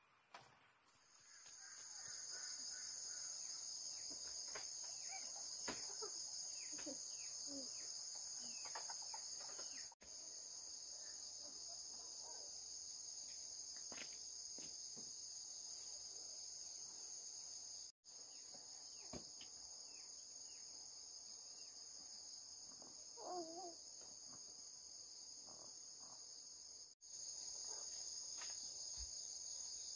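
Steady high-pitched insect chorus droning throughout, broken off three times for an instant. Faint scattered knocks and, about three-quarters of the way through, a short wavering call that is likely a chicken.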